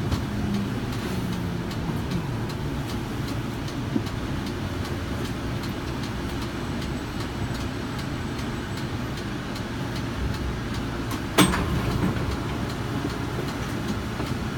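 Kinki Sharyo light rail vehicle with an Alstom ONIX IGBT inverter braking to a stop: the AC traction motors' low whine falls in pitch over the first couple of seconds. It then settles into the steady hum of the standing car, with one sharp knock about eleven seconds in.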